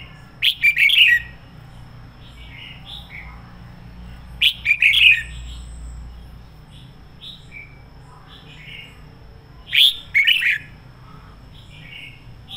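Red-whiskered bulbul singing three loud, full phrases about four to five seconds apart, in excited 'căng lửa' song, with softer chirps in between.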